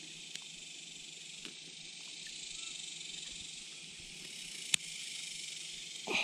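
Steady high-pitched insect chorus, with a few small clicks and one sharp click about three-quarters of the way through.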